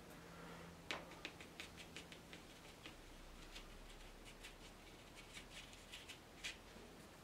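Faint, irregular scratching taps of a paintbrush flicking across watercolour paper, about three a second.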